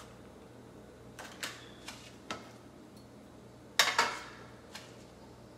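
A metal frying pan is set down on the grate of a portable butane stove, a loud double clank with a short ring about four seconds in. A few light clicks and taps come before it, over a faint steady hum.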